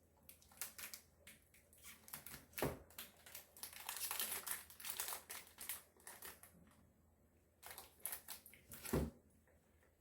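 Crinkly plastic snack wrapper being handled and opened, with a dense rustling spell about four to five seconds in. Two soft thumps, one near three seconds and one near the end.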